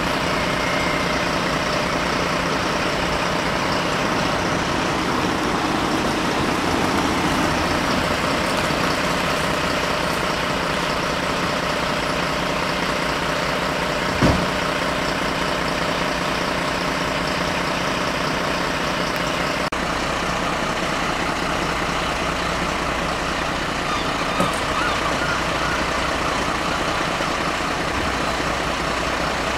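Diesel engine of a MAN fire engine idling steadily. There is one sharp thump about halfway through and a lighter knock near the end.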